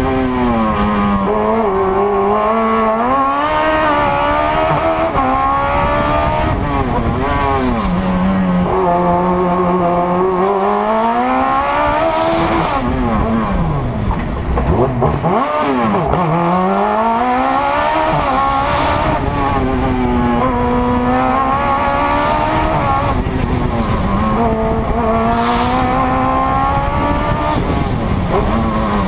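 Suzuki Hayabusa motorcycle inline-four in an Autobianchi A112 race car, heard on board, revving hard through the gears during a slalom run. The revs climb and fall repeatedly as it shifts and lifts for the gates, with one deep drop and climb about halfway through.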